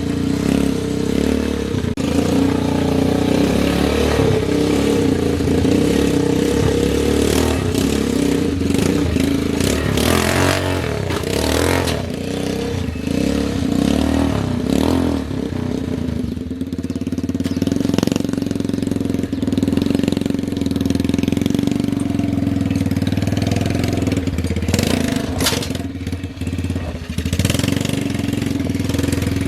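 The 125 cc motorcycle engine of a homemade mini 4x4 rock crawler running steadily, with a few brief noisy clatters along the way.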